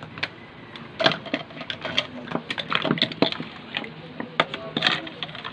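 Small plastic toy dishes and play-food pieces clicking and clattering as they are handled, picked up and set down, in quick irregular knocks.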